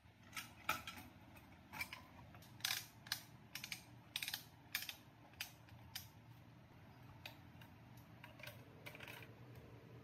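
Irregular sharp clicks and light taps of the mini flour mill's metal lid and grinding-stone parts being handled and fitted together. The clicks come thick and fast for the first six seconds, then thin out.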